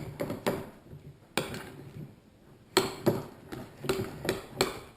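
Spoon knocking against the side of a mixing bowl while stiff, thickening slime is stirred: about ten sharp, irregular knocks.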